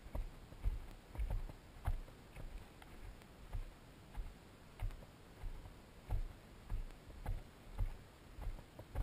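A hiker's footsteps on a rocky dirt trail, in a steady walking rhythm of about one and a half steps a second. Each step is a dull thump with a light crunch of gravel and grit.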